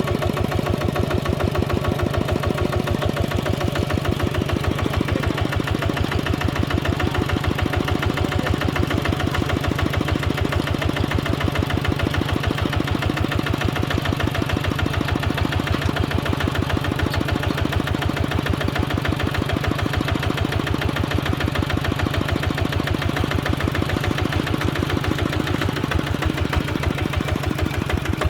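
Engine of a heavy earthmoving machine running steadily at an even speed, its firing pulses fast and regular.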